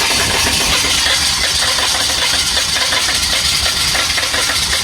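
Starter cranking the cold 6.2-litre diesel V8 of a 1985 GMC Suburban, steady and loud, with the engine not yet catching.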